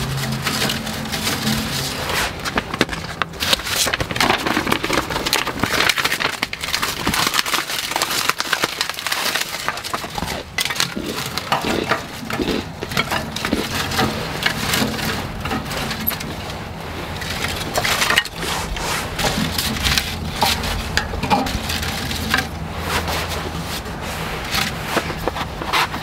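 Thin sheets of kyōgi (paper-thin wood veneer) being torn and split into strips by hand for kindling: a continuous run of small dry snaps, splintering and rustling.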